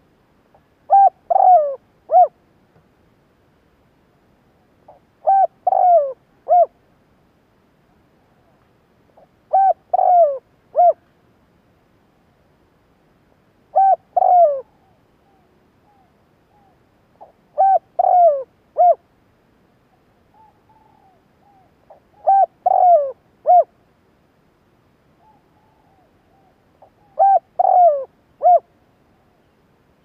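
Spotted dove cooing its song: a three-note phrase with a long, falling middle note, repeated seven times about every four seconds. Fainter coos come in between the phrases.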